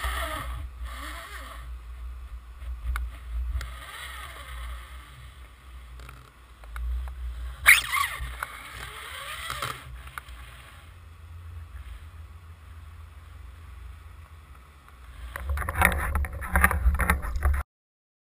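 Muffled underwater rumble picked up by a camera on a fish-release line, with scattered clicks and knocks. There is a louder burst of clicking and rattling about eight seconds in and again near the end, then the sound cuts off suddenly.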